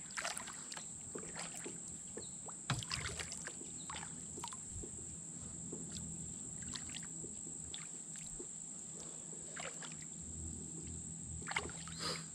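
Kayak paddle strokes in calm, shallow river water: the blade dipping and pulling with irregular small splashes and drips.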